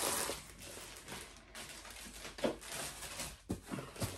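Faint handling noises of a diamond painting kit's packaging: soft rustling with a few light knocks.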